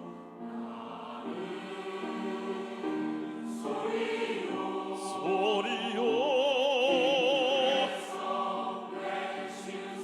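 Church choir singing held notes of an anthem with vibrato, rising in pitch and swelling louder about five seconds in, then easing off near the eighth second.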